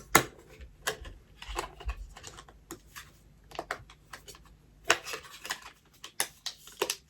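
Irregular small clicks and taps of hard objects being handled and set down, loudest just at the start, with a cluster of quicker clicks around five seconds in and again near the end.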